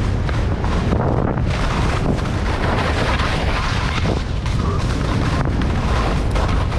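Wind buffeting a head-mounted action camera's microphone as a skier speeds downhill, over the continuous hiss and scrape of skis running through snow.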